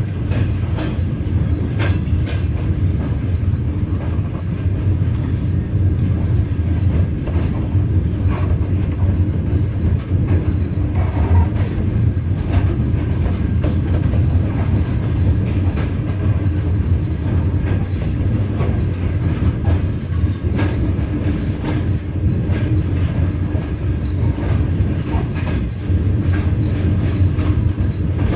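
Train heard from aboard while it moves: a steady low rumble with scattered clicks and clatter from the wheels on the track.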